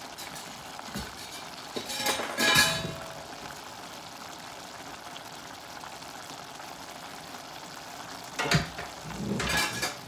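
Rice stuffing simmering in a stainless saucepan, a steady bubbling hiss as the last of the water cooks into the rice. Two brief louder noisy bursts come about two seconds in and near the end.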